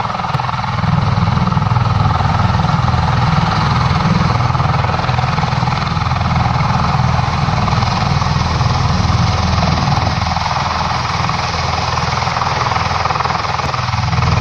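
Osprey tiltrotor aircraft flying close by: steady loud rotor and engine noise with a rapid low pulsing.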